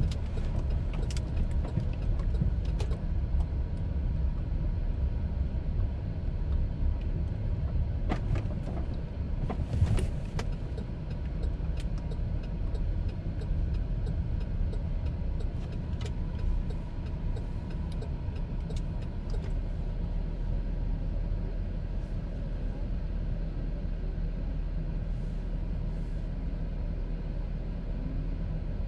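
A car running, with a steady low engine and road rumble and a few light clicks and knocks scattered through the first part, settling to an even drone near the end.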